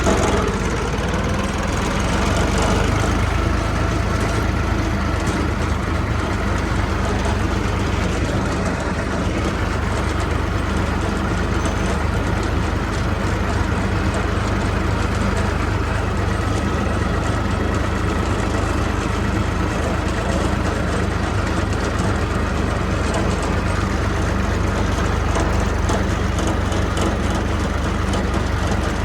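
Kubota U30 mini excavator's diesel engine running steadily.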